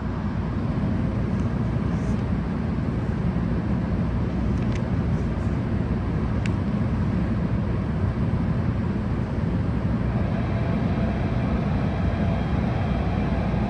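Steady low rumble of the stationary Amtrak train idling at the platform, with a few faint clicks and, near the end, a faint steady tone added.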